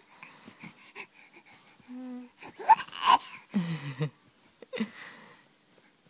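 A young baby's breathy sounds and brief coos, with a short high squeak about three seconds in, the loudest sound, and a lower falling sound right after.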